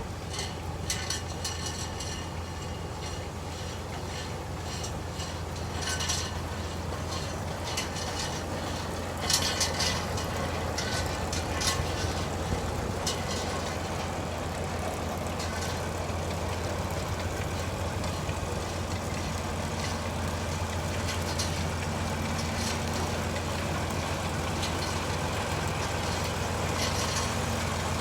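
Engine running steadily at a low, even drone, with scattered sharp clanks and rattles about six to thirteen seconds in.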